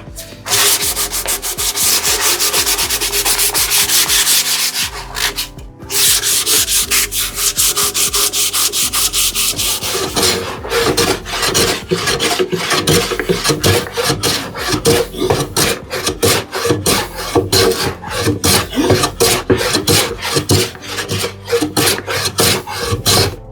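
A hand tool rubbing back and forth on wood in quick, repeated strokes. There is a brief pause about five seconds in, and after about ten seconds the strokes sound more separate and distinct.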